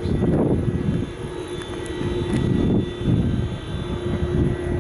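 Bombardier Traxx electric locomotive standing with its cooling blowers and equipment running: a steady whirring hum with one fixed tone and a fainter high whine above it.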